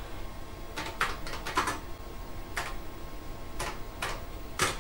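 Keystrokes on a Kaypro II's detachable keyboard as a command is typed: about nine separate key clicks, a quick cluster about a second in, then single presses, the loudest near the end.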